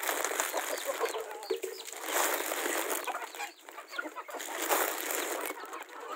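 A flock of chickens clucking in short, scattered calls as they crowd and feed around the feet.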